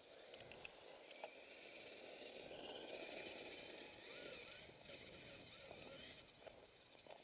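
Faint whine of a Traxxas Summit RC truck's electric motor and drivetrain as it drives through snow, swelling and wavering with the throttle for a few seconds in the middle.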